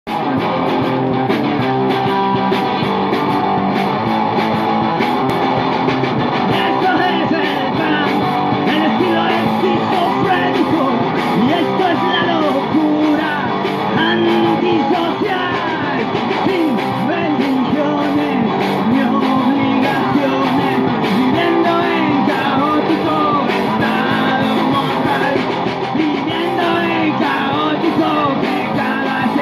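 Live punk-rock band playing: a man singing into a microphone over strummed guitar and a drum kit, the vocals coming in after the first few seconds.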